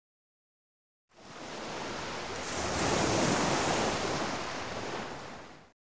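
A rushing, surf-like noise comes in about a second in, swells to its loudest around three seconds, then eases and cuts off abruptly near the end.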